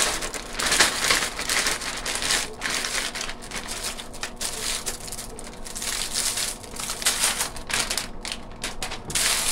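Plastic bag of a chopped salad kit crinkling and rustling as the chopped lettuce is shaken out of it into a bowl, in irregular crackly bursts that thin out over the second half.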